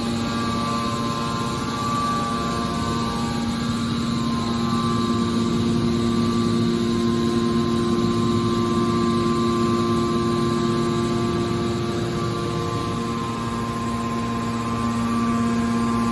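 Hydraulic baler's power unit, its electric motor and pump, running with a steady hum of several tones; the tone shifts slightly near the end.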